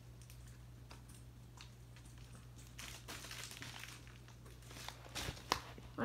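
Faint crinkling and rustling of a fidget toy's packaging being handled and opened, with a few sharper clicks near the end, over a low steady hum.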